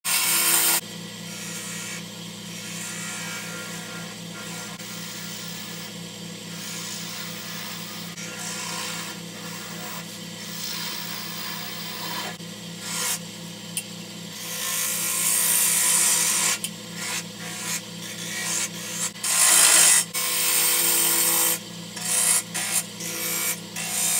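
Wood lathe running with a steady hum while a gouge cuts the spinning chokecherry blank, a scraping, rasping hiss of wood being shaved that comes and goes with each pass. The cutting is loudest in the second half.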